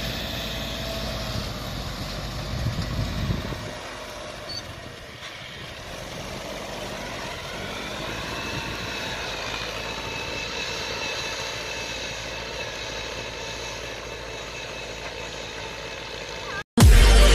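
Engine of a homemade tracked dump truck running close by for the first few seconds, then dropping to a fainter, steady drone as the truck moves away. Electronic music cuts in just before the end.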